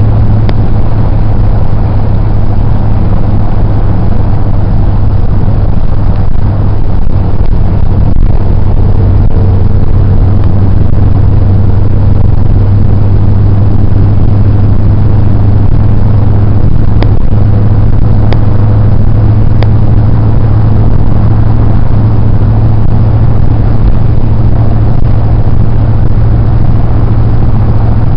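Steady low drone of a car's engine and tyres heard inside the cabin while driving, with a few faint clicks between about seventeen and twenty seconds in.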